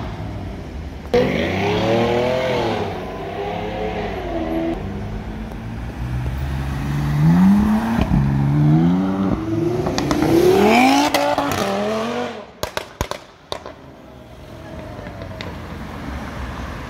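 BMW M4 coupe's twin-turbo straight-six accelerating hard, revs climbing and dropping through quick gear changes in two runs, followed by a few sharp cracks, then lighter traffic noise.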